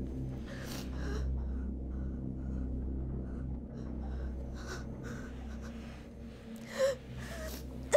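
A woman breathing heavily and shakily over a steady low hum, with a sharp voiced gasp near the end.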